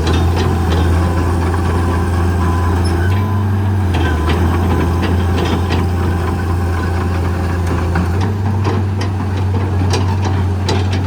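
Diesel engine of a 1995 John Deere 690ELC excavator running steadily, with scattered sharp clicks and knocks over it, more of them in the second half.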